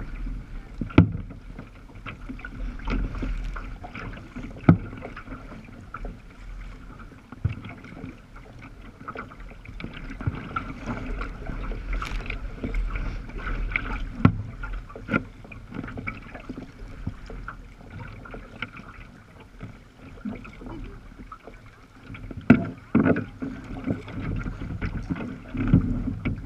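Choppy sea water lapping and slapping against the hull of a moving sea kayak, with irregular splashes and knocks.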